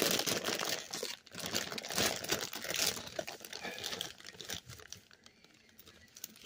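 PopCorners chip bag crinkling as it is handled in the hands, louder for the first three seconds, then dying down.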